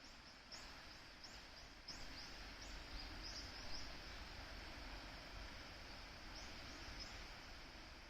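Faint steady rush of a waterfall and stream, with a small bird giving a string of short high chirps in the first half and a few more near the end.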